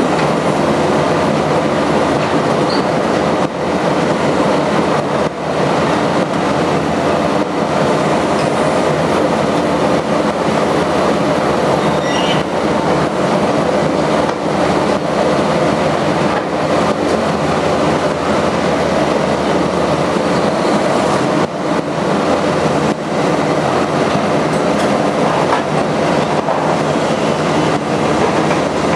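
Liebherr R 944 C crawler excavator working in demolition rubble: its diesel engine and hydraulics run loud and steady, with metallic clanking and occasional knocks from the bucket in the debris.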